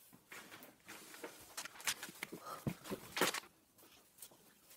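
Adhesive tape and paper handled on a tabletop: irregular crackles and rustles, a few sharper ones, thinning out to faint ticks near the end.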